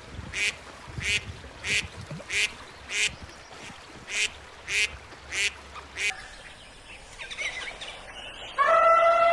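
A bird calling about ten times in quick, even succession, roughly one short call every two-thirds of a second. Near the end a longer call with a steady pitch begins.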